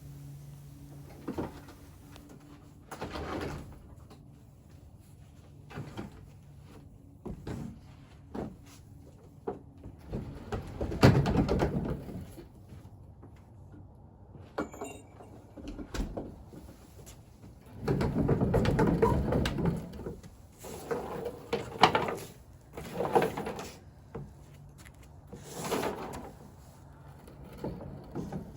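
Scattered bumps, knocks and scrapes of equipment being moved and handled, with a louder clatter about eleven seconds in and a longer stretch of scraping noise a few seconds before the end of the middle.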